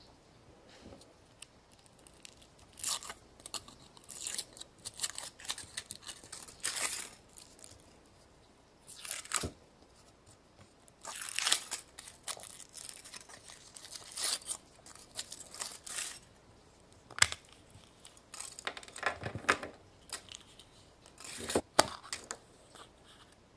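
Wrapper on a surprise egg being torn and crinkled as the egg is unwrapped and opened, in irregular rustling bursts with a couple of sharp clicks.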